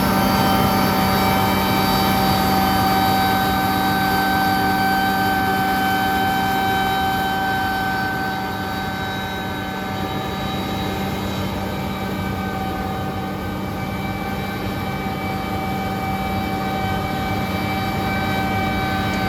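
Combine harvester running steadily while cutting barley: a constant machine drone with several held whining tones over it.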